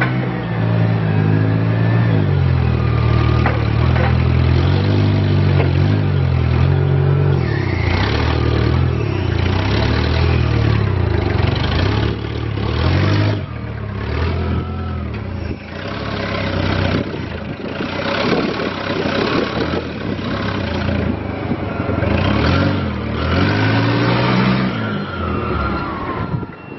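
A 2010 Yale GP50 forklift's 2.2-litre gasoline engine running and revving as the truck drives and manoeuvres, its pitch rising and falling repeatedly. The engine fades near the end as the forklift moves away.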